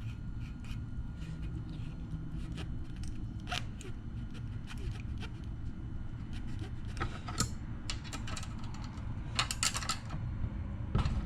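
Scattered light metal clicks and scrapes of hand tools working a small-engine rocker arm, a feeler gauge and wrench setting the valve lash, over a steady low hum. The clicks come in small clusters, a few about a third of the way in and more toward the end.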